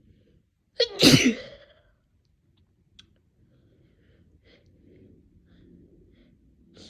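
One loud human sneeze about a second in, over within about a second. A few faint, soft sounds follow.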